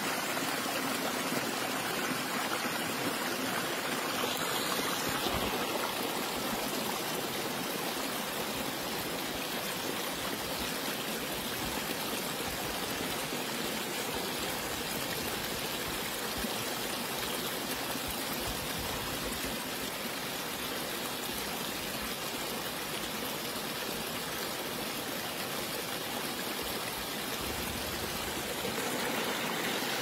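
A shallow stream running over rocks: a steady rush of water with trickling.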